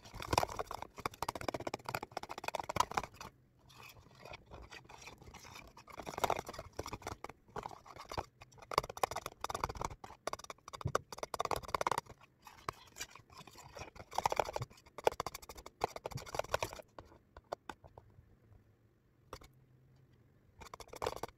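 Spatula scraping and stirring thick sandwich spread around a plastic tub, in bouts of quick strokes with short pauses between them. It eases off for a few seconds near the end.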